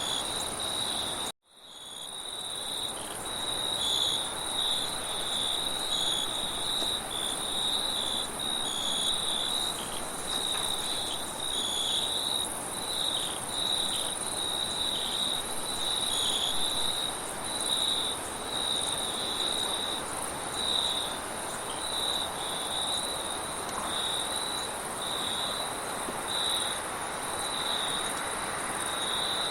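Crickets chirping in a dense, uneven pulsing chorus, with a steadier high trill above it, over a steady wind noise. About a second and a half in, everything cuts out briefly and fades back up.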